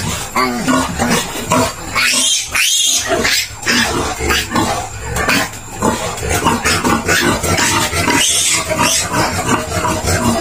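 Young piglet squealing loudly and over and over in distress while held down for tail docking and wound spraying.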